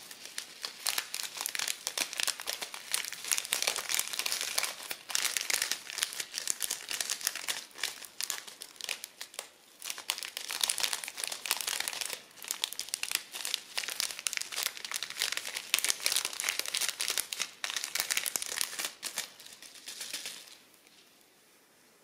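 Crunchy slime being squeezed and kneaded by hand, giving a dense, continuous crackling and crinkling that stops near the end.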